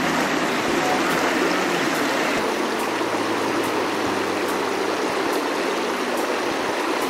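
Steady rush of running water, even and unbroken, with a faint low hum beneath it.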